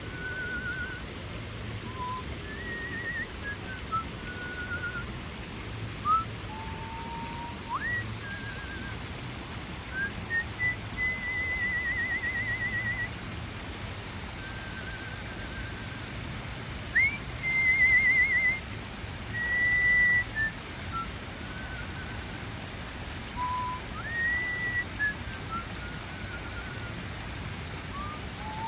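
A person whistling a tune of clear held notes with pauses between phrases, some notes warbling and a few sliding sharply upward, loudest about two-thirds of the way through. Under it runs the steady rush of small waterfalls splashing into a pond.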